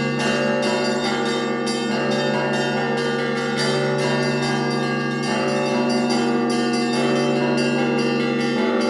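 Church bells ringing together: a deep bell sounding about every second and three-quarters under a dense, quick pattern of smaller, higher bells, the tones overlapping and ringing on.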